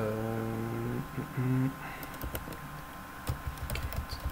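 Computer keyboard typing: a few scattered keystrokes in the second half. Before that, a man's voice holds one steady hesitation sound for about a second, then a short second one, and that voice is the loudest thing here.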